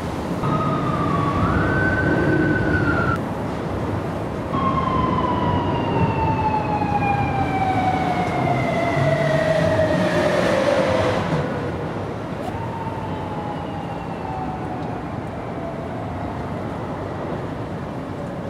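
A siren wailing: its pitch rises and holds briefly, breaks off, then a long wail falls slowly over about seven seconds, followed by a shorter falling wail. Steady traffic noise underneath.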